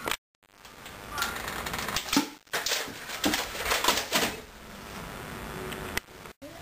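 A rapid string of sharp clicks and knocks, about two to four and a half seconds in, from a Nerf foam-dart blaster being fired and handled and a child dropping onto a carpeted floor.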